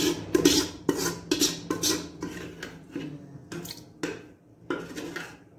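A steel ladle scraping and knocking against the side and bottom of a metal pressure-cooker pot as beef trotters in thick masala are stirred and fried, about two or three strokes a second, with a short pause a little after four seconds in.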